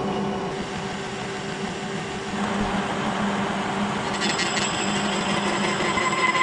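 Kearney & Trecker horizontal milling machine running, its quarter-inch-wide disc cutter cutting spline valleys in a Delrin shaft. About four seconds in the sound changes to a steadier whine carrying several steady high tones.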